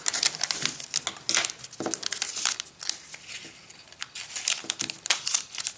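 A sheet of origami paper crinkling and rustling as it is refolded by hand into an envelope: irregular quick crackles, thinning out for a moment just past the middle.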